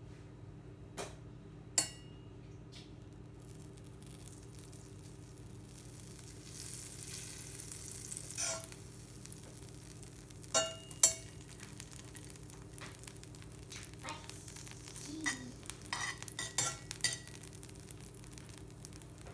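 Butter sizzling as it melts in a hot Matfer Bourgeat carbon steel frying pan while a stick of it is rubbed around the pan. The sizzle builds a few seconds in, with sharp pops and ticks scattered through it, the loudest about eleven seconds in and a quick run of them near the end.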